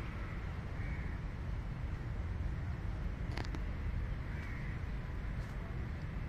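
Steady low rumble of outdoor background noise, with faint bird calls about a second in and again after four seconds, and a single sharp click about three and a half seconds in.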